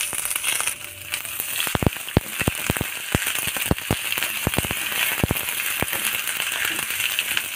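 Ginger paste and whole spices sizzling in hot oil in a nonstick wok, a steady frying hiss. From about two seconds in, a wooden spatula stirring knocks against the pan a dozen or so times.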